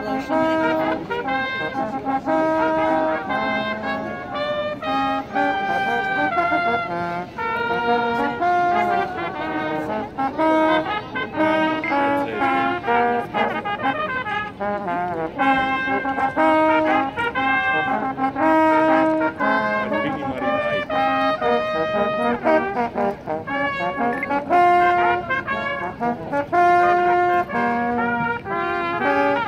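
Small brass band playing a tune in the open air: a steady melody of held notes from several brass horns together, continuing without a break.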